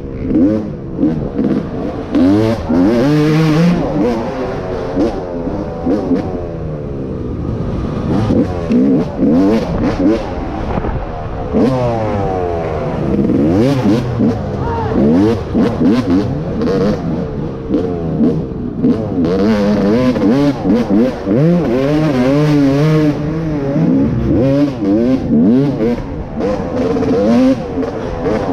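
Off-road racing dirt bike engine revving hard and rising and falling in pitch over and over as the rider works the throttle and gears, with short knocks and clatter in between.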